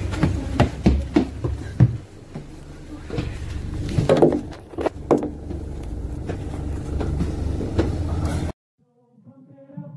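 Bus running with a steady low rumble, overlaid by a series of sharp clicks and knocks. The sound cuts off suddenly about eight and a half seconds in.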